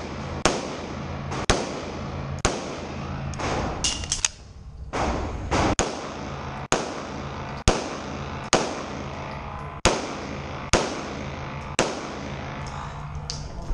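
Handgun shots fired at a steady pace of about one a second, over a dozen in all. Each is a sharp report with a short echoing tail off the walls of an indoor range.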